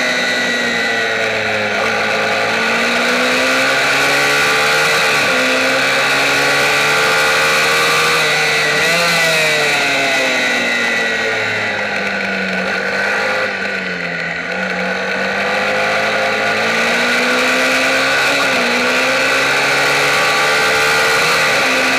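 Mini racing motorcycle's engine heard on board, revving hard and climbing in pitch through the gears with sharp drops at each upshift. About halfway through the revs fall away and it goes a little quieter for a slower corner, then the engine climbs again. Wind rushes over the camera throughout.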